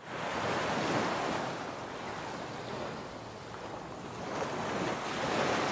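Ocean surf: waves breaking and washing up a beach, a steady rushing wash that swells near the start and again near the end.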